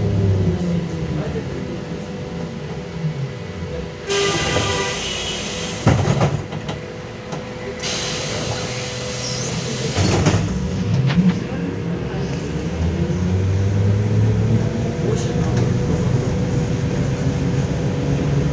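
Trolleybus DK-213 traction motor whine falling in pitch as the vehicle slows, then rising again as it pulls away. Two loud bursts of compressed-air hiss sound in between, typical of the brakes and pneumatic doors at a stop.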